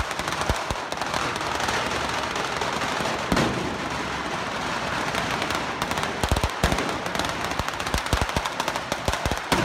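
Fireworks mounted on the ceremonial cart going off in a loud, continuous staccato crackle over a steady hiss. From about six seconds in, heavier bangs stand out in quick succession.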